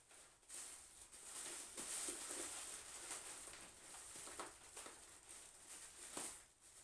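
Plastic packing bag and foam being rustled and crinkled by hand, with a few soft clicks.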